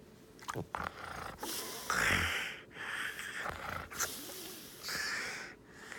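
A Siberian husky breathing noisily with its nose pressed into the bed: a series of hissy breaths about half a second each, the loudest about two seconds in. The blocked nose is what makes the breathing sound odd.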